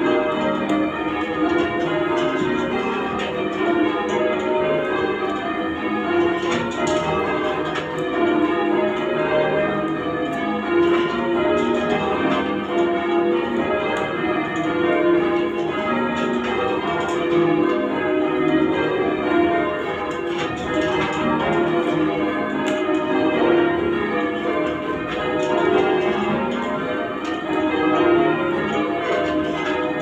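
Bristol Cathedral's ring of eight church bells, a 21 cwt ring tuned to E flat, being change rung: an unbroken stream of bell strikes heard from the ringing chamber beneath the bells.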